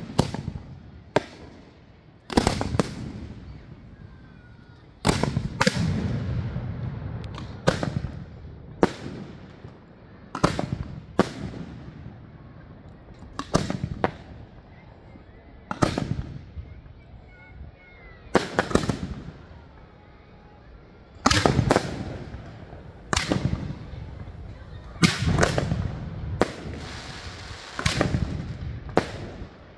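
Aerial fireworks shells bursting overhead: about twenty sharp bangs at irregular intervals of one to three seconds, often in close pairs, each followed by a rolling echo.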